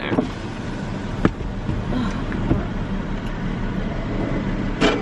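Steady low rumble of a car running, with a few faint clicks.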